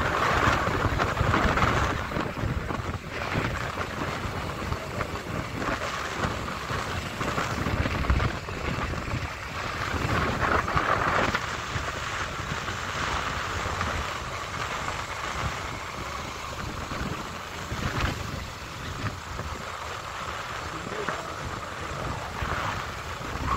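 Wind buffeting the microphone of a moving motorcycle, with the bike's running engine and road noise beneath it.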